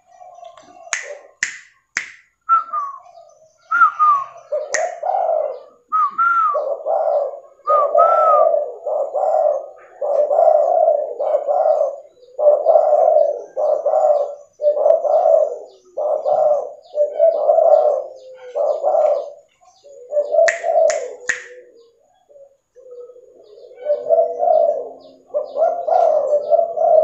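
Spotted dove (tekukur) cooing over and over, a long run of low coos about one a second, with short pauses. A few short higher chirps come between the first coos, and a few sharp clicks sound near the start and again about two-thirds through.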